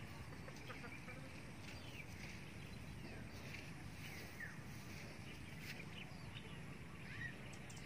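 Faint outdoor ambience with scattered short bird chirps over a low steady background hiss.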